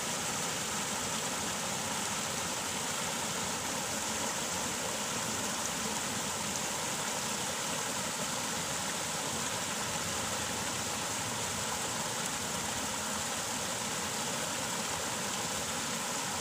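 Water rushing steadily over a small weir into a narrow irrigation ditch, a constant, even splashing roar.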